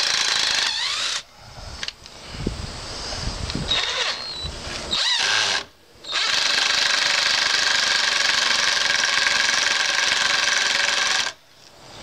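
Chicago Electric 18-volt 1/4-inch cordless impact driver hammering as it backs a lag screw out of the edge of a 2x4. There is a short loud run at the start, a few quieter, uneven seconds, then a second loud steady run of about five seconds that cuts off suddenly near the end.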